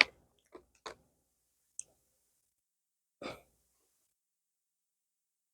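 A few faint, short mouth sounds from someone tasting a chip: small clicks and smacks in the first two seconds, then one brief breath or throat sound a little over three seconds in, with silence between.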